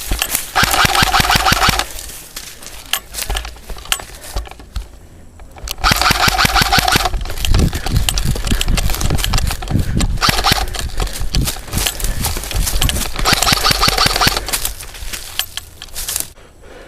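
Electric airsoft rifle firing full-auto: four bursts of about a second each, the rapid shots riding on the gearbox and motor whine, with scattered single shots in between.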